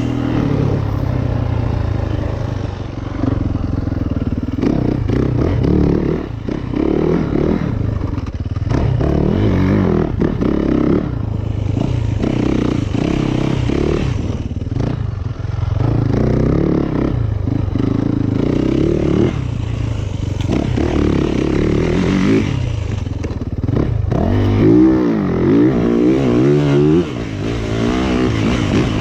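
2019 Yamaha YZ450FX's single-cylinder four-stroke engine revving up and down as the dirt bike is ridden around a rut track, the throttle repeatedly chopped and opened again, with some clatter from the bike and dirt.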